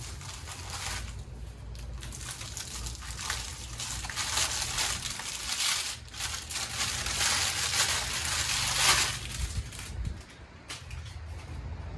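A cardboard box and its packaging being opened and handled, with crinkling and rustling in irregular bursts that are loudest in the second half.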